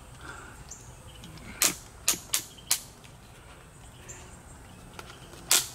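Sharp plastic clicks from a portable rechargeable fan being turned and tilted in its stand: four quick clicks over about a second, then one more near the end.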